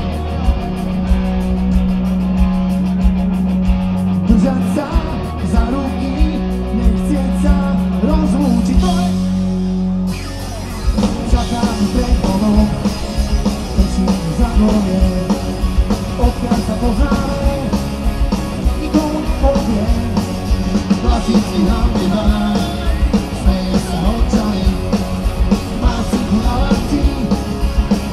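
Live punk rock band playing: drums, bass and electric guitars. A low note is held under the drums for about the first ten seconds, then the full band comes in about ten seconds in, with a singer's voice over it.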